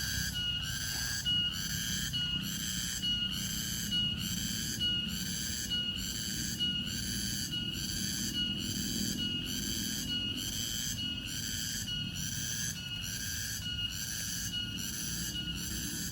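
A cricket chirping in a steady, even rhythm, just under two high-pitched chirps a second, over a low outdoor rumble.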